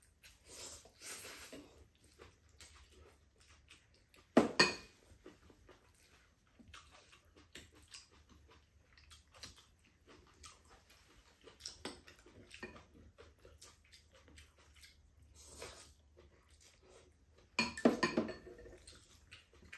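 Two people eating glass-noodle japchae: noodles slurped and chewed, with chopsticks clinking against ceramic bowls. The clinks are loudest about four seconds in and in a short clatter near the end.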